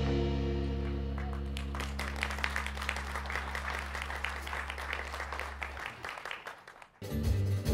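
A rautalanka guitar band's final chord rings out and slowly fades, while a small audience claps thinly. Shortly before the end the band starts playing again.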